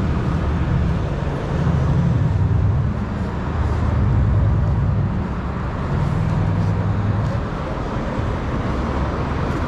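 City street traffic noise: a steady low rumble that swells a few times, as if vehicles are passing.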